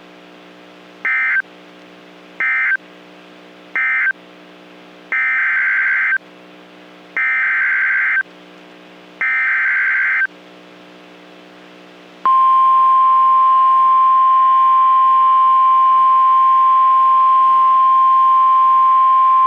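NOAA Weather Radio alert signalling: three short buzzy SAME data bursts (the end-of-message code), then three longer data bursts (the header for the next warning). About twelve seconds in comes the loud, steady 1050 Hz warning alarm tone. A faint low hum sits underneath.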